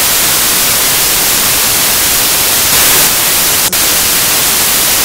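Loud, steady static hiss like white noise, with a brief dip about three and a half seconds in.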